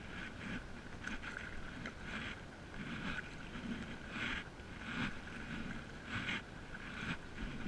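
Stand-up paddle blade dipping and pulling through calm water, with a repeated splash and trickle from each stroke, roughly one a second.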